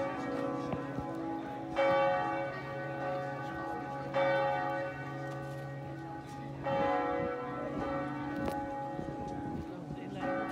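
Tower bells of Sint Martinuskerk swinging and ringing out. A clanging strike with a long hum comes about every two and a half seconds, with a longer gap before the last one. A deep steady hum underneath stops about two-thirds of the way in.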